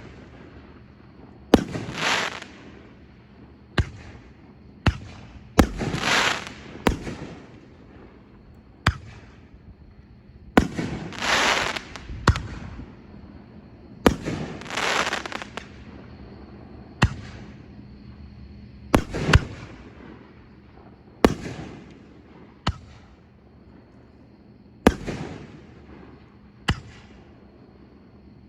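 Consumer fireworks going off: about fifteen sharp reports at irregular spacing, roughly one every one to two seconds, several of them followed by a noisy, rushing tail about a second long.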